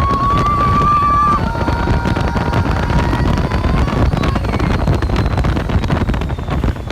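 Test Track ride vehicle running at speed: a loud, steady rumble with wind rushing over the microphone. A thin whine drops in pitch about a second and a half in and fades out by about four seconds.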